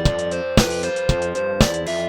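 Samsung SGH-D113 ringtone playing: a synthesized melody of held notes over a regular beat of about two strikes a second.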